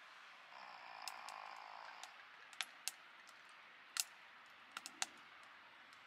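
Faint, scattered sharp clicks and crackles, about seven in all, the loudest about four seconds in, with a soft hiss about a second in.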